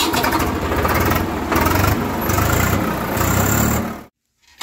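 Sound effect of an animated fire-blast logo intro: a noisy whooshing blast over a deep rumble, coming in several surges, which cuts off suddenly about four seconds in.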